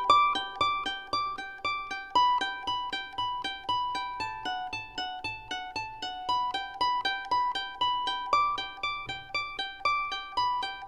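Background music: a plucked string instrument, like a mandolin or ukulele, playing a steady melody of separate notes, each struck sharply and fading away.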